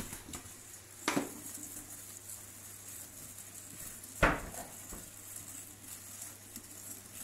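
Metal wire whisk stirring yogurt and sugar in a glass bowl, with two sharp clinks of the whisk against the glass, about a second in and about four seconds in, the second louder.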